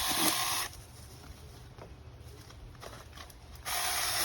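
Cordless mini chainsaw's electric motor and chain run in two short bursts, the trigger pulled briefly each time. The first burst comes right at the start and lasts under a second; the second starts near the end and cuts in just as suddenly.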